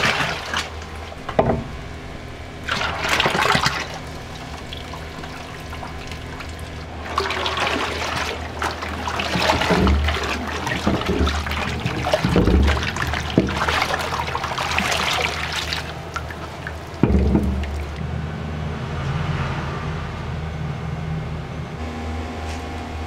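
Low-fat milk poured from cartons into a large stockpot of white sauce, splashing in short bursts, then a wooden spatula stirring and sloshing the thick sauce for several seconds, with a single knock about 17 seconds in. A steady low hum runs underneath.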